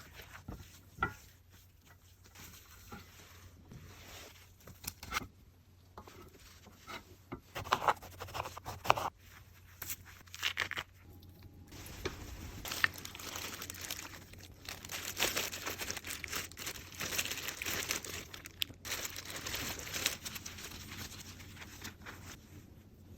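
Kitchen handling noises from preparing rice cakes: scattered taps and clicks, then, about halfway through, several seconds of steady crinkling and tearing, like plastic wrap or peel being handled.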